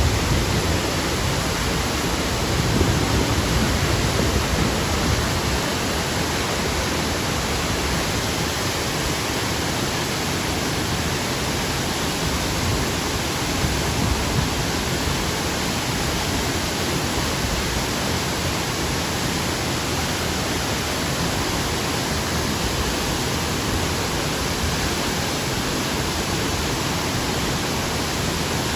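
Waterfall, water pouring steadily in an even rushing noise, a little fuller in the low end for the first few seconds.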